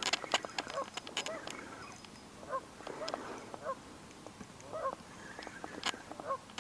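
Geese honking repeatedly, short rising-and-falling calls in small groups, with scattered sharp clicks, the loudest near the end.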